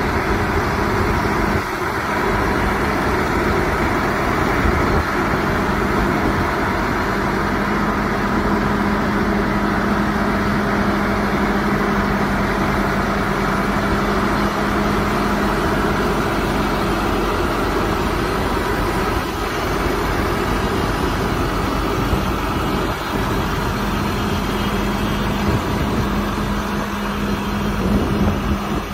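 Case IH Magnum 315 tractor's six-cylinder diesel engine idling steadily.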